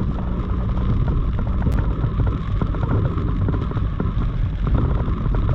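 Heavy rain pelting a moving vehicle: a dense crackle of drops over the steady low rumble of the road and engine.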